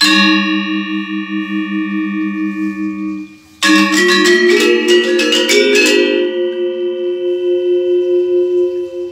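A pair of Balinese gendèr wayang, bronze-keyed metallophones struck with mallets. A struck chord rings with a pulsing shimmer for about three seconds and stops, then a quick run of interlocking notes settles into a long ringing tone.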